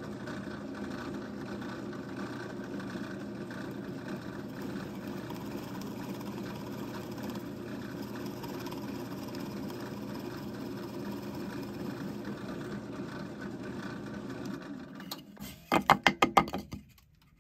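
Drill press running with a freshly resharpened Irwin 88 Speedbor spade bit boring a hole through a wooden block, a steady hum of motor and cutting. Near the end comes a quick burst of loud knocks.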